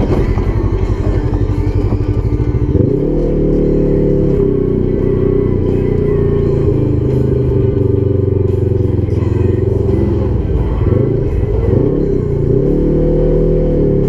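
Polaris 1000 XP side-by-side's engine pulling along a trail, its pitch rising and falling as the throttle is worked, with a sharp rise about three seconds in and several more near the end. Background music plays over it.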